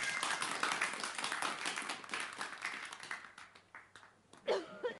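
Audience clapping that dies away over about three seconds, followed near the end by a brief voice-like call.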